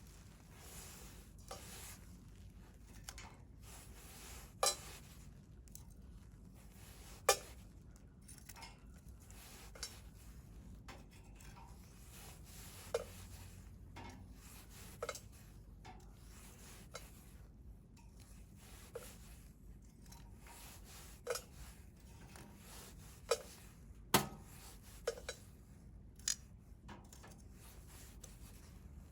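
Wood fire crackling: scattered sharp pops and snaps from the burning wood, about a dozen at irregular intervals, over a low steady hiss.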